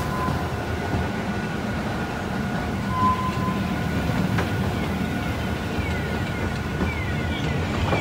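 Steady rumble of a rail vehicle running on track, with two short high beeps about three seconds apart and a run of short falling squeals near the end.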